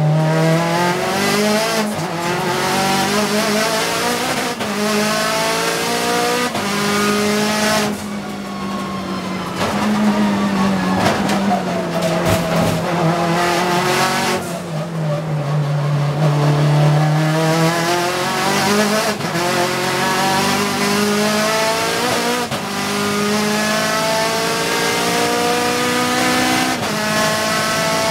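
Mitsubishi Lancer Evolution time-attack car's turbocharged four-cylinder engine heard from inside the cabin at full race pace, its pitch climbing and dropping back sharply at each upshift, with stretches of lower, steadier revs through the corners.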